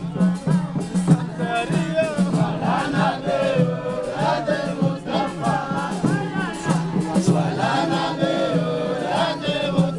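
A crowd singing and chanting together over loud music with a steady low drone.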